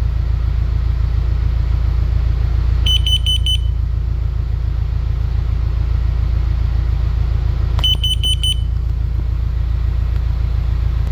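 Carbon monoxide alarm sounding its alarm pattern: groups of four quick, high-pitched beeps, twice, about five seconds apart, signalling that it has detected a high carbon monoxide level. A steady low rumble runs underneath.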